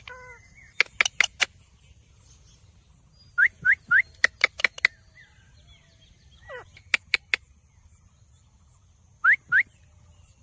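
Pet parrot giving short rising chirps, three in quick succession about three and a half seconds in and two more near the end, with groups of very sharp clicks between them.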